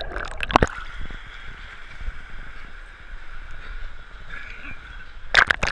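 Pool water splashing and sloshing against an action camera's waterproof housing as it goes under and back out of the water. Sharp splashes come about half a second in and again near the end, with a muffled wash of water between them.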